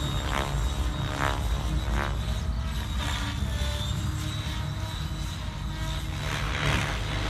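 Align T-Rex 700X electric RC helicopter flying aerobatics at 2100 rpm headspeed: a steady main-rotor hum, with repeated blade swishes that rise and fade as it manoeuvres.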